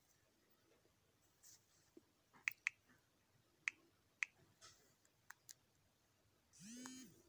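Light clinks of kitchen utensils and cookware: a few sharp, ringing clicks spread through the middle, then a brief pitched squeak near the end, all faint.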